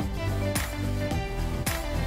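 Background music with a steady beat, about two beats a second, over sustained instrument notes.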